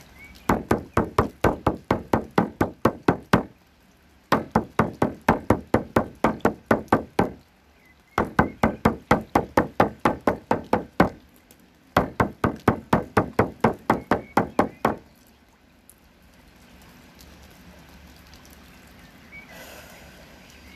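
Shamanic frame drum of stretched hide struck with a padded beater: four runs of fast, even beats, about four a second, each run lasting about three seconds with short pauses between. The drumming stops about fifteen seconds in.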